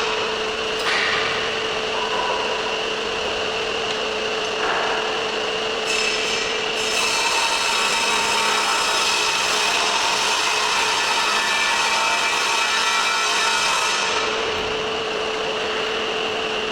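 MM2020 BCS15220 belt cylinder sander, a sanding belt on an inflated drum spinning at 1500 r/min from a 1.5 kW motor, running with a steady whine while wood is sanded against it. The rasping is harsher between about six and fourteen seconds in.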